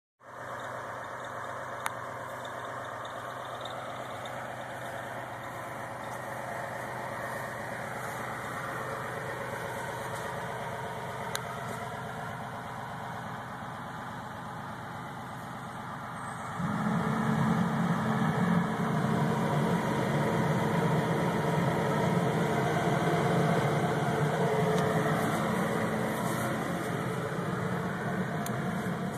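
Semi truck's diesel engine idling steadily. Just past halfway a louder low hum comes in and holds.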